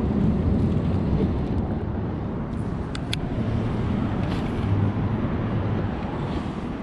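Low, steady engine rumble with a faint hum, with a few light clicks around the middle.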